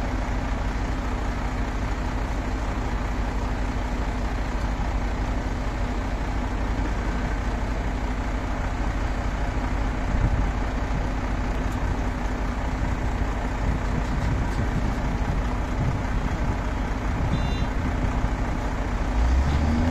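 Heavy diesel truck engine idling steadily with a low rumble; a louder, deeper hum comes in near the end.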